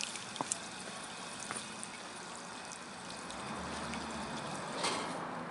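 Water running out of an open garden hose and pouring onto the pavement, a steady splashing stream, with a few faint clicks.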